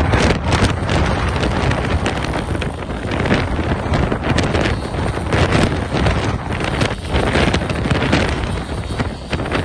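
Storm wind buffeting the microphone: a loud, gusty rush of noise that keeps swelling and easing.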